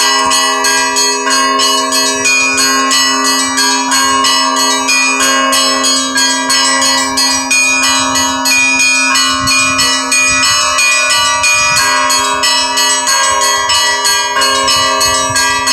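Russian Orthodox church bells rung in a continuous, busy peal: small bells struck several times a second over the steady ringing of larger bells.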